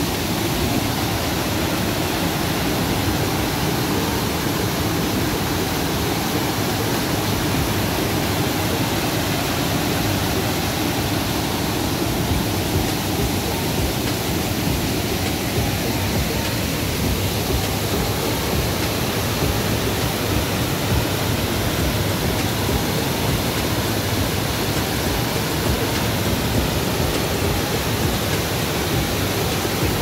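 Steady, unbroken rush of falling water from a waterfall.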